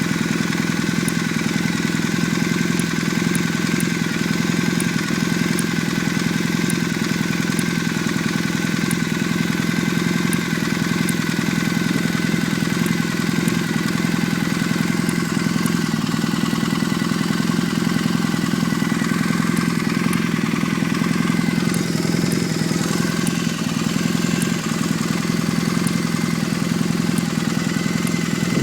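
Warmed-up engine idling steadily, with short, faint, high-pitched chirps about once or twice a second. The cause of the chirping is unknown to the owner.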